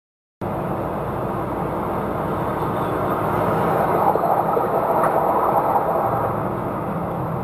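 Steady engine and road noise heard from inside a lorry cab at highway speed, starting abruptly about half a second in.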